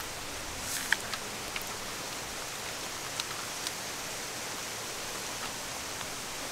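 Steady background hiss with a few short, sharp crunches as someone bites and chews a crispy fried pakora, the loudest about a second in.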